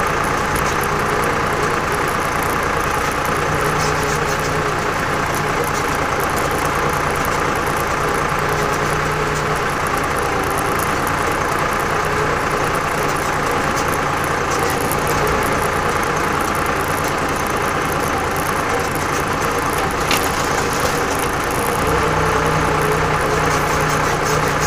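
Torpedo TD 55 tractor's air-cooled diesel engine running steadily as the four-wheel-drive tractor pushes through deep wet snow. Near the end the engine note deepens and gets a little louder.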